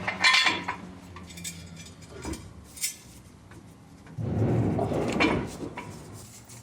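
Steel tools and a jack stand clinking and knocking as they are set in place under the front knuckle. About four seconds in there is a louder rough scraping that lasts about a second.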